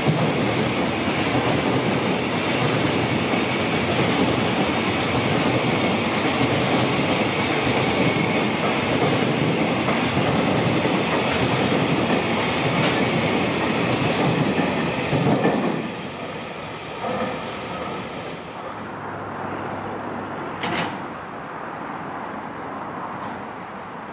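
JR Freight container train's wagons running past close by, a loud, steady rumble of wheels on rail. About two-thirds of the way through it drops off suddenly, leaving a much quieter background with a couple of brief knocks.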